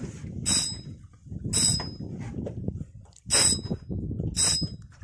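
Spinning reel on a heavily bent rod under the load of a big fish, giving four short, bright metallic zings about a second apart, over a low rumble of wind and water.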